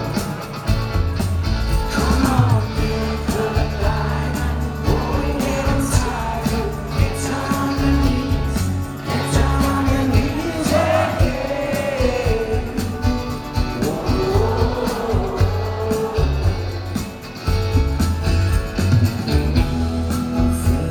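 Live rock band playing: electric guitars, bass and drums under a male lead vocal, loud and continuous, heard from among the audience.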